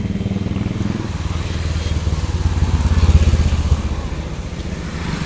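Motorcycle engine running while riding along, with its fast low pulsing under road and wind noise; it swells louder for a couple of seconds in the middle, then eases back.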